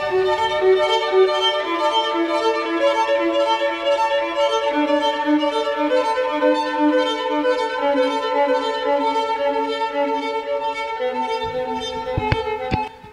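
Background music on violin, long held notes stepping slowly downward. A few short knocks near the end.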